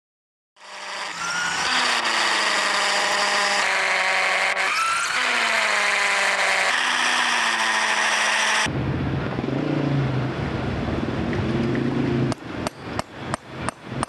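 A loud machine runs with a wavering, pitch-shifting whine. It cuts abruptly to the rough pounding of a pneumatic jackhammer breaking concrete pavement, which near the end goes in short repeated bursts, about three a second.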